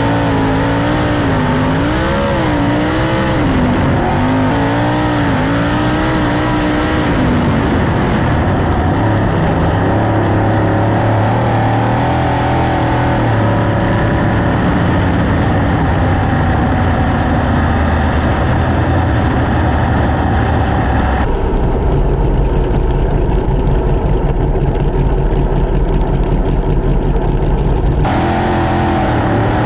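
Winged dirt-track sprint car's V8 engine at racing speed, heard from the cockpit. Its pitch rises and falls as the throttle goes on and off through the turns. The sound turns duller for several seconds near the end.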